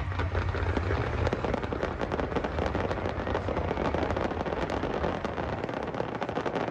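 Fireworks crackling: a dense, continuous run of many small, rapid pops.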